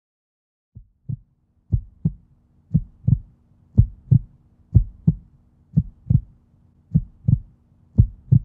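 Heartbeat sound effect: a lub-dub double thump about once a second over a faint steady hum, starting about a second in.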